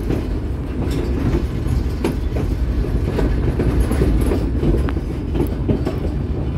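White Pass & Yukon Route train rolling along the track: a steady low rumble of the moving cars, with the wheels clicking now and then over the rails.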